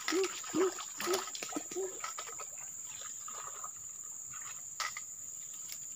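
Forest insects making a steady high drone. In the first two seconds an animal gives a run of short low hoots, about two a second, and a few sharp clicks stand out now and then.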